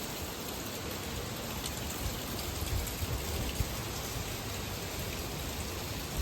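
Heavy rain falling steadily in a gusting storm wind.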